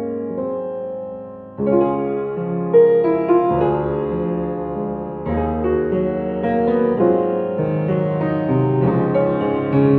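Background music: a gentle piano or electric-piano tune. It thins out and fades briefly, then comes back fuller and louder about one and a half seconds in.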